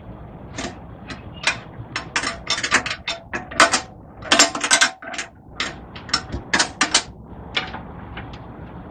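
Ratchet head of a long torque wrench clicking in irregular runs as the handle is swung back and forth, tightening a bolt. The clicks come densest and loudest in the middle and thin out near the end.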